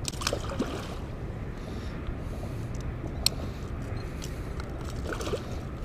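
Steady low rumble of wind and water around a boat, with a single sharp click about three seconds in.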